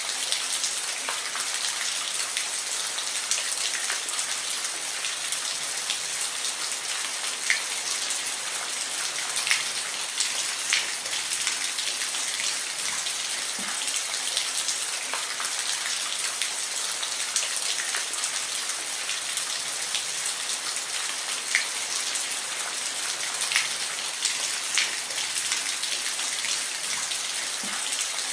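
Steady rain falling, a dense even patter with occasional louder individual drops striking a surface.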